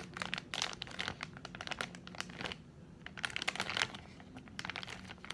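Airheads candy package crinkling as it is handled and squeezed by hand, in close, fast crackling flurries with a brief lull about halfway through.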